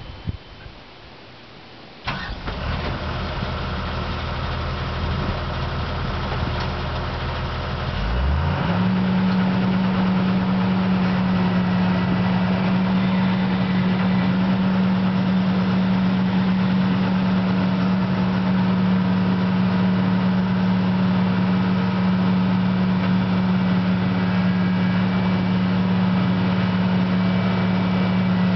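CAT 315 excavator's diesel engine starting about two seconds in and idling, then about eight seconds in the revs rise quickly to a higher throttle setting and hold there, running steadily.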